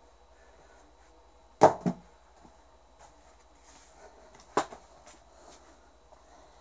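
A cowboy boot thrown down onto a rug-covered floor, landing with a sharp thud and a quick second knock as it bounces. A single sharper knock follows about three seconds later, then a few faint taps.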